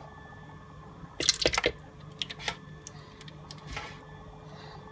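Yogurt going into a blender jar: a quick run of wet plops and clicks about a second in, then a few lighter taps.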